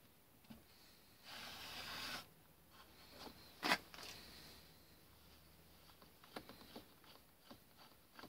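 Faint handling of a steel dividing head on a workbench: a short scrape about a second in as it is slid round on its base plate, a single sharp metal clack near the middle, then light scattered ticks as the worm shaft is handled.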